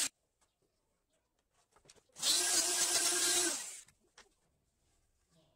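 Handheld electric router running for about a second and a half in the middle, cutting a louver slot through a plywood jig with a steady motor whine, then stopping.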